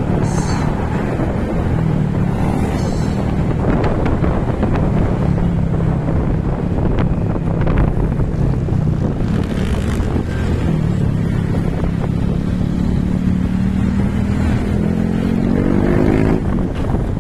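A vehicle engine running steadily on the road, with wind buffeting the microphone; the engine pitch rises over the last few seconds as it speeds up.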